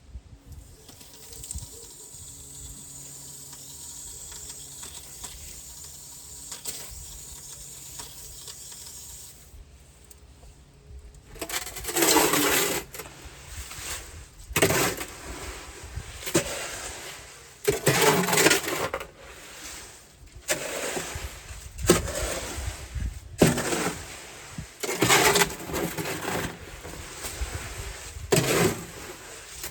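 Wet concrete being mixed by hand in a wheelbarrow: after a faint steady hum, repeated gritty scraping strokes of the mixing tool through the wet mix begin about a third of the way in, one every second or two.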